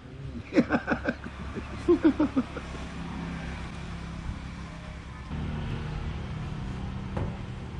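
A motor vehicle engine running steadily, getting louder about five seconds in. Near the start there are two short runs of about five quick pitched pulses each.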